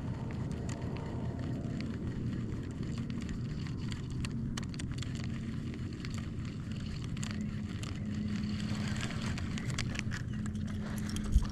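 A steady low motor hum, with faint scattered clicks and a single thump near the end.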